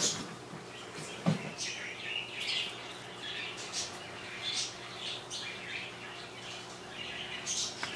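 Bird chirping in short, irregular calls over a steady low hum.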